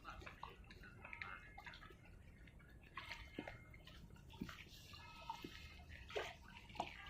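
Faint sea water trickling and dripping, with small scattered splashes and gurgles: the lull between waves.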